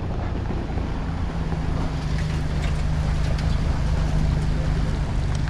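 A vehicle engine running with a steady, low hum.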